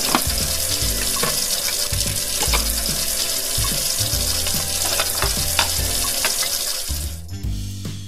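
Tap water running into a sink while dishes and cutlery are washed, with light clinks of dishes throughout; the water stops about seven seconds in.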